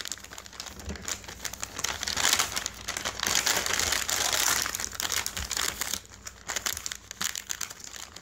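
Plastic heater bag of a self-heating meal crinkling and rustling as it is folded over and handled, loudest in the middle and quieter near the end.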